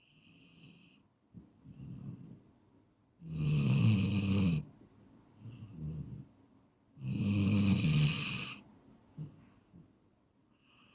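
Someone asleep and snoring: two loud, rattling snores about four seconds apart, each lasting over a second, with quieter breaths between them.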